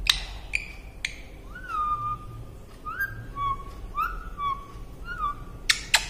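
Indian ringneck parakeet giving three short sharp calls, then whistling four notes, each sliding up and falling back to a held tone, with more sharp calls near the end.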